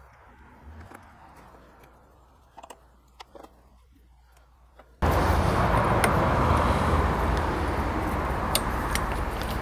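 A few faint clicks, then about five seconds in a lawnmower's small engine comes in suddenly at full level and keeps running steadily. It is running with a replacement recoil starter fitted in place of one whose broken pawl would not retract and made the strange noise.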